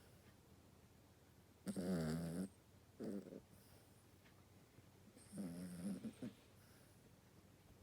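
Toy poodle snoring with a bullfrog-like croak: two long, rattling snores a few seconds apart, the first followed about a second later by a short one.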